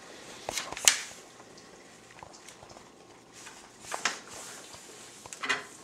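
A sheet of paper being folded in half and creased flat by hand on a wooden table: three short paper rustles, the loudest about a second in, another near four seconds and one near the end.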